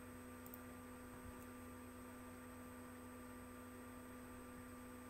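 Near silence: a steady electrical hum in the recording, with two faint clicks in the first second and a half.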